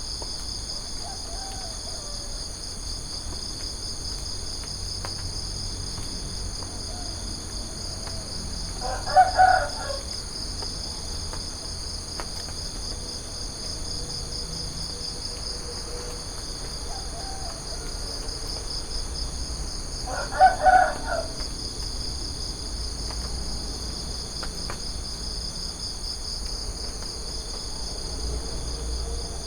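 A steady, pulsing insect chorus runs throughout. A rooster crows twice, about nine seconds in and again about twenty seconds in, each crow short and louder than the chorus.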